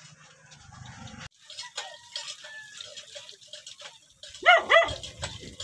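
A dog barking twice in quick succession near the end, after a few seconds of faint background sound.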